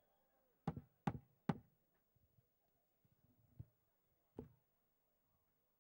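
Three sharp knocks in quick succession about a second in, then two more a few seconds later.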